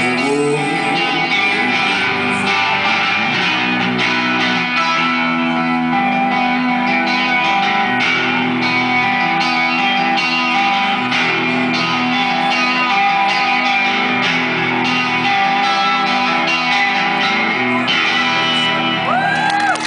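Live band playing a guitar-led instrumental passage with no vocals, the song's closing bars, steady and loud throughout.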